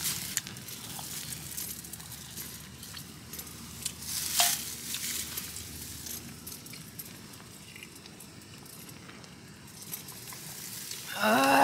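Quiet handling noises while eating and drinking: a plastic food glove rustling and a metal drink can being handled and sipped from, with small clicks and one sharp crackle about four seconds in.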